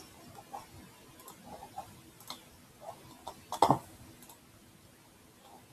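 Scattered light clicks and taps of a computer mouse at a desk, irregular, with one sharper click about three and a half seconds in.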